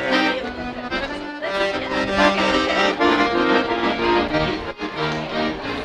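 Accordion playing a traditional tune: held chords under a melody that changes notes several times a second, with one brief break near the end.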